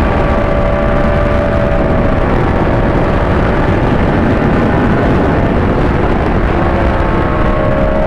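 Yamaha R1's inline-four engine running at a steady road speed over a constant rushing noise. Its pitch eases down slightly in the first couple of seconds and climbs a little again near the end.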